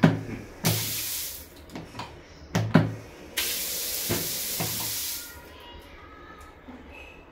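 Push-button shower diverter being tested: buttons clicked and knocked in turn, and water hissing out of the shower outlets in two spells, the second about two seconds long, stopping about five seconds in.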